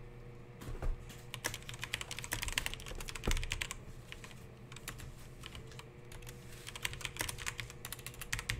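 Irregular light clicks and taps of hands at work, handling a cardboard box and packs or typing, with a faint steady hum underneath.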